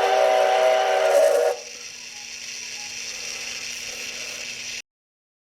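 Toy electric train whistle blowing a chord of steady tones with hiss, stopping about a second and a half in; then the train's mechanism runs quietly with a steady hum until the sound cuts off abruptly near the end.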